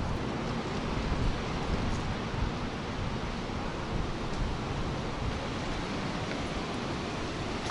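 Strong storm wind blowing steadily, rushing across the microphone.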